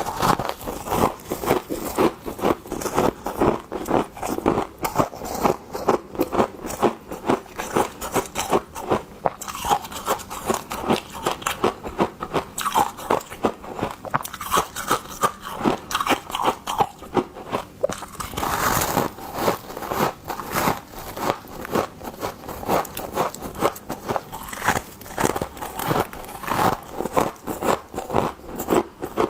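Frost crunching in a quick, irregular run of crisp crunches, several a second.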